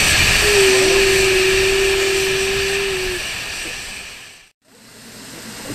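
Steam hissing steadily from a narrow-gauge steam locomotive's cylinder, with a single held tone for a couple of seconds near the start. The hiss fades out about four seconds in, and a softer hiss follows.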